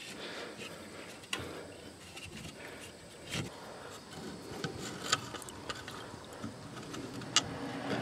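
Faint handling noises from a fuel sediment bowl being worked loose from its base: a few short sharp clicks a second or two apart over a low background hiss.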